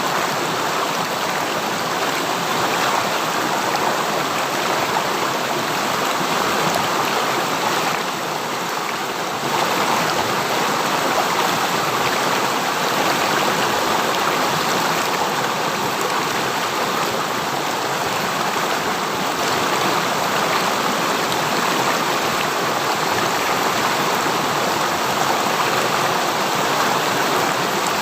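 River stream flowing: a steady, even rush of running water, dipping slightly in level about eight seconds in.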